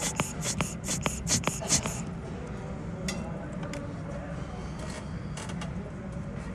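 Quick, repeated scraping strokes, about three a second, which stop about two seconds in. After that only a low steady hum and a few faint small ticks remain.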